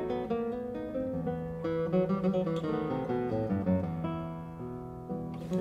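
Background music: an acoustic guitar playing plucked notes and strums.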